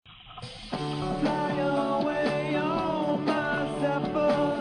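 Background music with a steady beat, coming in during the first second.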